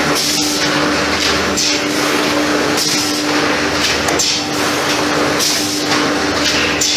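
ZDJ1000 board groove-cutting machine running under automatic feed: a steady motor hum under a hissing, cutting burst that repeats about every second and a quarter as each board is pushed through and grooved.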